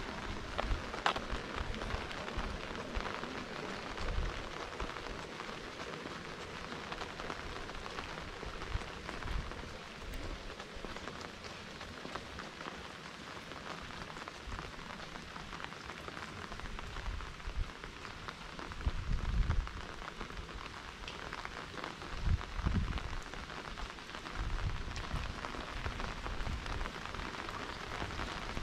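Pouring rain falling steadily: a continuous hiss of drops on wet ground. A few short low thuds come in the second half.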